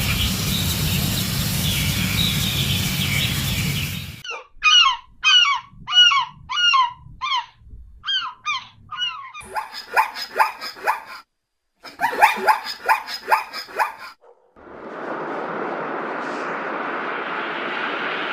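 A run of short honking calls from farm fowl, about two a second, each dropping in pitch, then a denser flurry of calls. Steady rushing noise comes before and after them.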